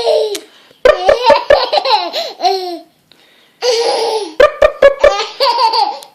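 A baby boy laughing in two long bursts of high, gliding giggles. Each burst opens with a quick run of four or so short pops.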